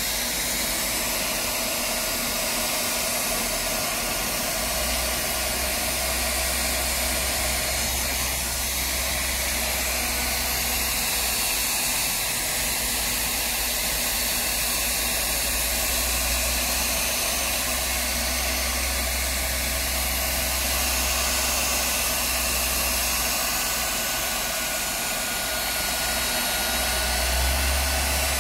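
Leister Triac ST hot air gun running steadily, its blower motor, on a rewound burnt-out stator, pushing a steady rush of hot air with a thin whine over it.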